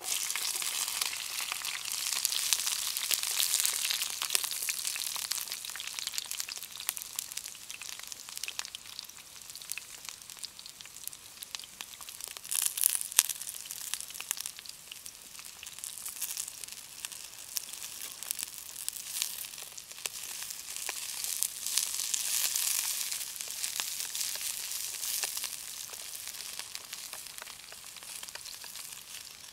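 Noodles and vegetables sizzling in a hot pan over a campfire, a steady frying hiss full of sharp crackles, louder in the first few seconds and with a burst of louder crackles about 13 seconds in.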